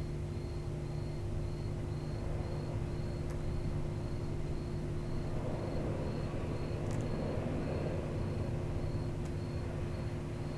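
Steady low background hum with a faint high-pitched pulsing tone repeating two to three times a second. There are a few faint clicks. The puppy makes no sound that stands out.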